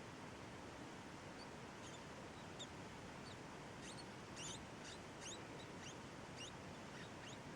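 Baby rats squeaking in the nest: faint, short, high-pitched squeaks that slide down in pitch, a few scattered at first and coming thick and fast from about halfway through.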